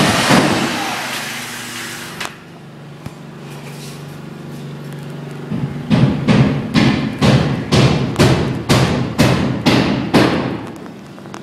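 A loud rushing noise that fades away over the first two seconds, then a steady low hum, then a quick, even series of about fourteen sharp knocks, about three a second, each ringing briefly.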